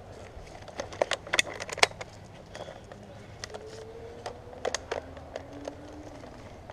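Scattered sharp clicks and crackles at an irregular pace, thickest in the first two seconds and again past the middle, over a steady low hum.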